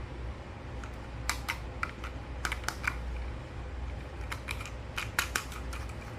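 Light clicks and taps of small plastic toys being handled, coming in short clusters over a low steady hum.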